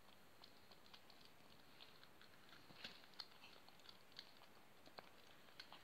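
Four-week-old Maine Coon kitten eating dry kibble from a dish: faint, irregular crunches and clicks of chewing and kibble knocking against the dish.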